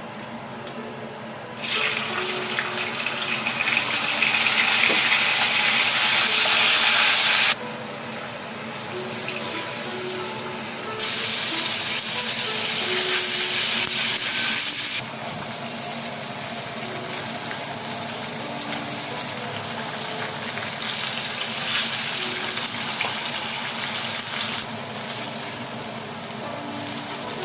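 Kitchen tap running into a sink or bowl in three spells, each turned on and cut off abruptly; the first is the longest and loudest. Soft background music plays underneath.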